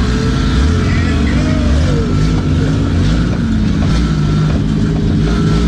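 Figure-8 race car's engine running loud and steady, heard from inside the car's cabin.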